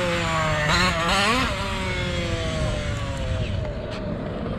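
MCD XR5 1/5-scale RC car's two-stroke gas engine running at speed, with a quick rev up and back down about a second in, then its pitch sliding slowly lower as it eases off.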